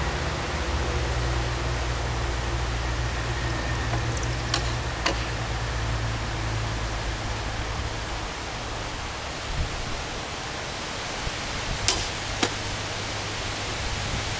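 Steady outdoor background hiss with a low hum underneath, broken by a few short, sharp clicks.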